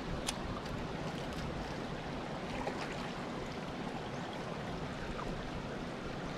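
Creek water running steadily as an even rushing, with one faint click just after the start.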